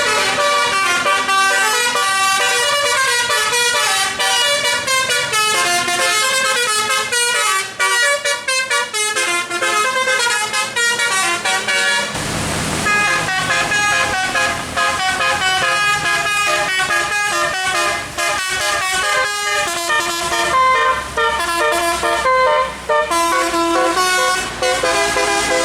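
A bus's telolet musical air horn plays a fast, unbroken run of melody notes that step up and down. A short rush of noise comes about halfway through, and a low rumble follows it.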